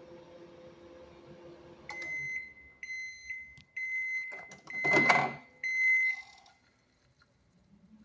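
A Fischer microwave oven runs with a steady hum for about two seconds, then stops and sounds five short high beeps, the end-of-cycle signal. A louder clatter comes around the fourth beep.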